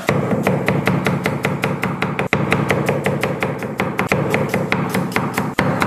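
Chinese cleaver slicing garlic cloves on a thick wooden chopping block: rapid, even knocks of the blade on the wood, about five a second. Background music plays underneath.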